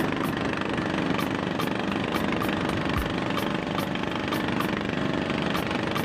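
Motorboat engine running steadily at a constant speed, with a faint tick repeating about twice a second.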